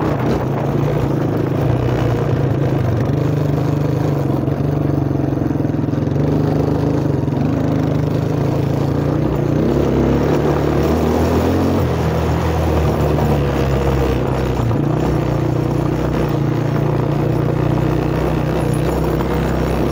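1985 Suzuki four-wheeler's engine running steadily, its pitch shifting about halfway through as the engine speed changes.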